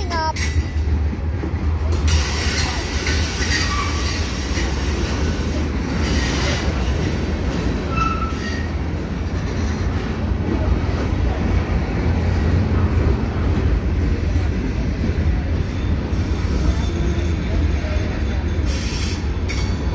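Long mixed freight train of hopper, gondola and tank cars rolling slowly past: a steady rumble of wheels on rail, with scattered clicks from the wheels and a few brief wheel squeals.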